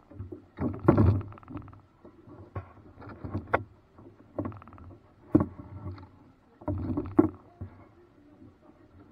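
Paddle strokes in river water from a small boat: a series of splashes with sharp knocks among them, about one a second, easing off about seven seconds in.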